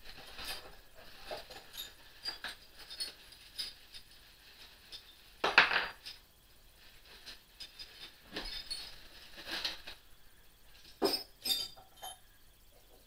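Small metal hand tools clinking and clattering as they are handled and lifted out of a plastic toolbox, with plastic wrapping rustling. The sounds come as irregular short clinks and rustles, the largest about five and a half seconds in and two more close together near the end.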